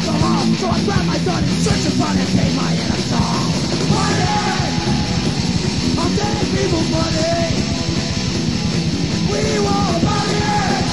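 Punk rock song playing loud and steady, a shouted vocal over the full band.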